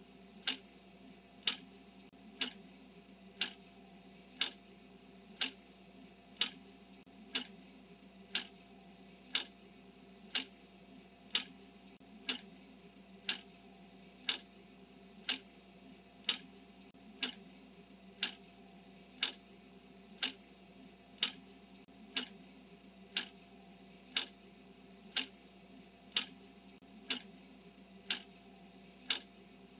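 Clock ticking steadily, one tick a second, over a faint steady hum.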